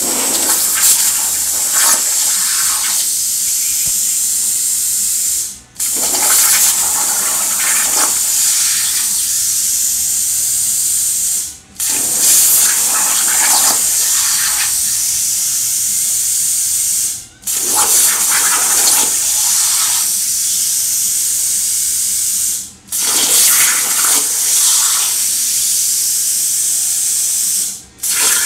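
Hypertherm plasma torch on a CNC plasma table cutting 16-gauge mild steel: a loud, steady hiss of the arc and cutting air. It breaks off for a moment five times, about every five and a half seconds, as the arc goes out between cuts.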